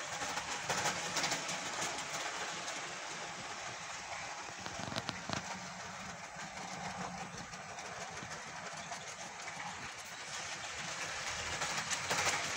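Model electric train running on the layout track: a steady motor whir with wheels clicking over the rail joints, louder about a second in and again near the end as the locomotive passes close.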